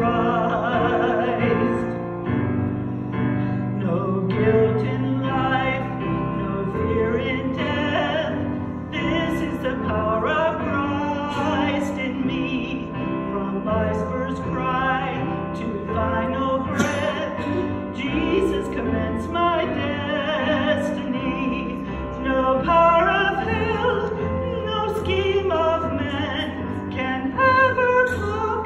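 A woman singing a solo with wide vibrato, over sustained keyboard chords.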